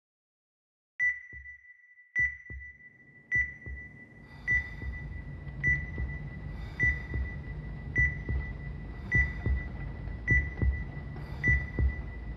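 Heart monitor beeping steadily, a single high beep a little more than once a second, each beep with a low double thump under it. A low steady drone joins about four and a half seconds in.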